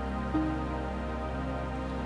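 Soft new-age-style background music: held notes over a steady low drone, with a new note coming in about a third of a second in.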